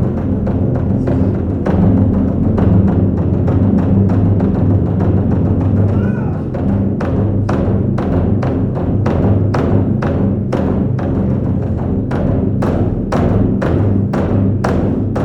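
Japanese taiko drums beaten with bachi sticks in a driving rhythm, deep booming strokes under sharper hits. From about halfway the strikes come evenly, roughly three a second.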